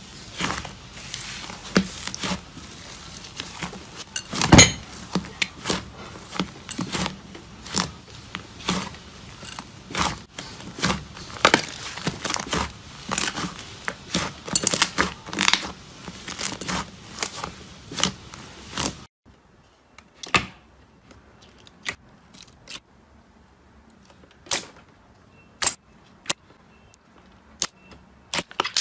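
Slime being squeezed and poked by hand, with many crackling clicks and pops. About two-thirds of the way in, the dense crackling stops abruptly and only scattered, sharp single pops follow.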